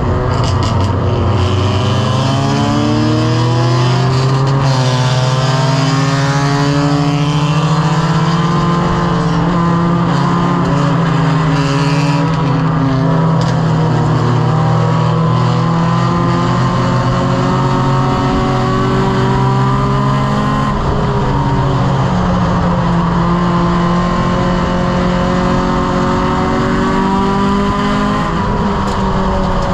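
In-cockpit sound of a Strictly Stock Mini race car's engine running hard under racing throttle. Its pitch climbs as it accelerates in the first few seconds, then holds high and steady. A little over two-thirds of the way through it dips briefly and then climbs again.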